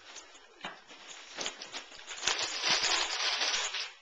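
Gift wrapping paper being torn and crinkled as a present is unwrapped, a rapid crackle that grows loud about two seconds in and stops just before the end.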